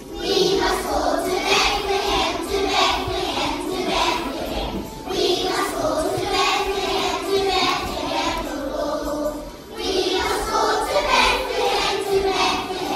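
A choir of young children singing together, with a short break between phrases about ten seconds in.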